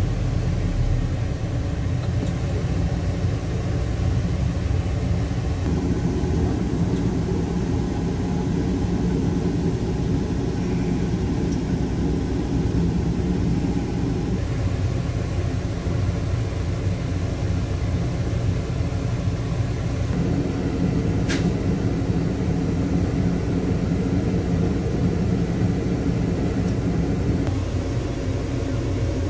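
A car engine running with a steady low rumble of driving noise, its note shifting a few times as the vehicle moves. A single brief sharp click comes about two-thirds of the way through.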